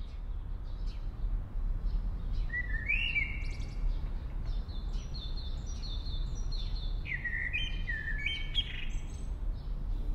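Songbird singing in short repeated phrases: upward-sweeping chirps followed by runs of quick higher notes, over a steady low rumble.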